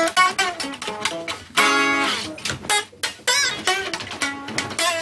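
A guitar played by hand: a quick run of plucked notes that ring and fade, with a louder chord about one and a half seconds in that rings on longer.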